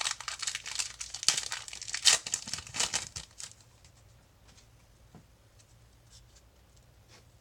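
Foil wrapper of a trading card pack being torn open and crinkled, a quick run of loud crackles and rips lasting about three seconds. After that come only a few faint ticks as the cards are handled.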